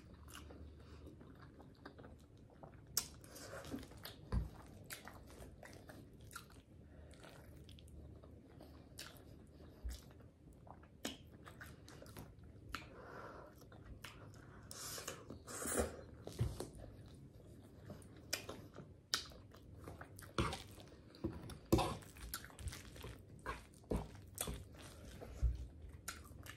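Close-up eating sounds of a person chewing and slurping ramen noodles in Alfredo sauce with chicken: irregular wet mouth clicks and smacks, busier in the second half.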